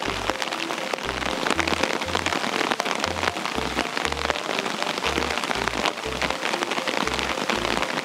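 Steady rain falling, a dense hiss of many small drop hits, over background music with a regular bass line.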